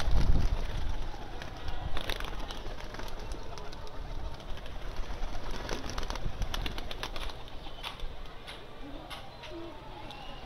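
Flock of domestic pigeons flapping their wings, loudest in a flurry right at the start, then scattered wing claps and cooing as they feed.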